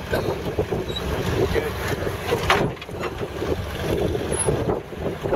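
Lifted rock-crawling pickup's engine running unevenly at low revs as the truck climbs over rock ledges, with wind buffeting the microphone. There is a sharp knock about halfway through.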